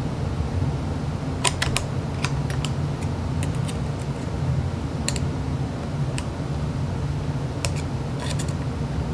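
Screwdriver tips clicking and scraping against a steel circlip and the gears of a Triumph Spitfire gearbox mainshaft as the circlip is pried out of its groove. There are a dozen or so sharp metallic clicks in small clusters, over a steady low hum.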